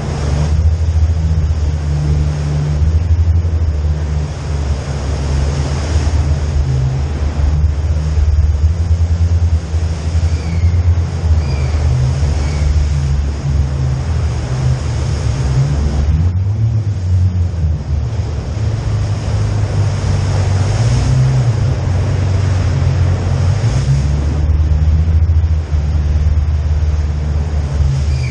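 A 4x4's engine running steadily at low speed, a deep drone with a steady hiss above it.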